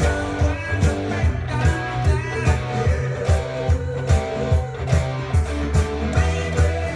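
Electric guitar, a Les Paul-style with humbucking pickups, playing a rock part with bent notes over a backing track with a steady drum beat and bass.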